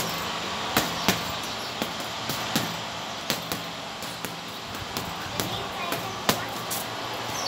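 Gloved punches landing on a hanging heavy punching bag: a string of sharp smacks at about two a second, unevenly spaced.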